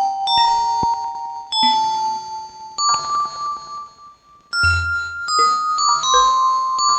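Yamaha PSR-36 keyboard playing bell-like notes through the Vivlex Time Maker pedal's LoFi delay mode. Single notes start sharply and ring on, overlapping one another. The sound dips briefly about four seconds in, then a new note enters with a low thump.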